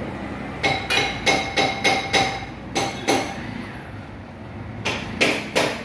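Hammer blows on metal, ringing, as a part is tapped into a motocarro engine's aluminium crankcase: a run of eight quick strikes, a pause, then three more near the end.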